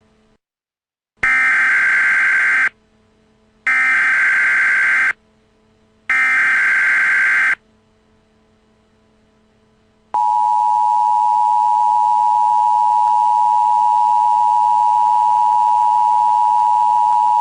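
Emergency Alert System tones: three equal bursts of SAME header data, about a second apart, then the steady two-tone attention signal starting about ten seconds in.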